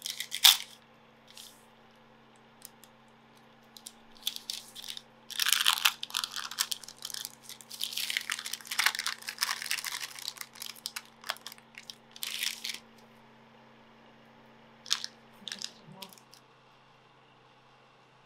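Parchment paper crinkling and tearing as it is unfolded and peeled away from a slab of half-set candle wax, in scattered crackling bursts with a long busy stretch in the middle.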